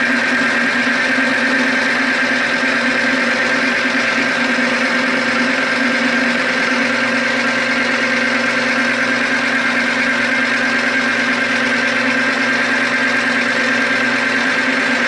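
Manrod MR 301 bench lathe running steadily: a constant motor-and-drive whine with a few held tones and no change in speed.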